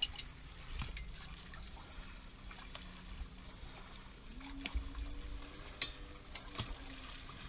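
Light metallic clicks of pliers working a steel cotter pin on a bronze propeller nut, with one sharper ringing click about six seconds in, over faint water lapping. A faint low hum steps up in pitch a little past the middle.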